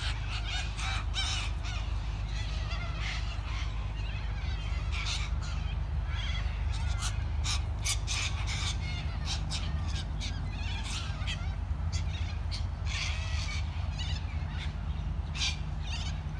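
A flock of corellas (white cockatoos) screeching, harsh calls over and over from many birds at once, over a steady low rumble.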